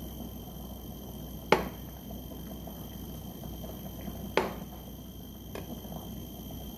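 Kitchen knife cutting through a block of jelly and knocking on a wooden cutting board: two sharp knocks a few seconds apart, then a fainter one, over a faint steady hum.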